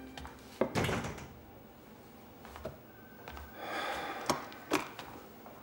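A few sharp knocks and clicks in a small room: two close together just under a second in, then a stretch of rustling and two more clicks near the end.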